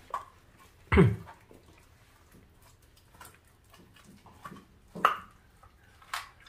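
Welsh corgi chewing raw meat and bone, with irregular crunches and bites. The loudest is a short sharp one about a second in, with more near five and six seconds.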